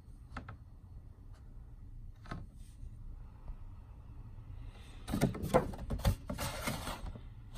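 Cardboard box-set packaging being handled: a few light taps, then a couple of seconds of louder rustling and scraping near the end as the box is worked open.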